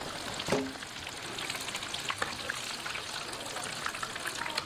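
Food frying in hot oil at a street-food stall, with a steady sizzle full of small crackles. A short knock sounds about half a second in.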